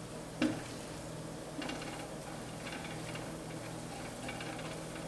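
Spatula stirring and scraping flour and oil around a nonstick skillet, strokes about once a second, over a light sizzle as the roux of flour and pork drippings cooks.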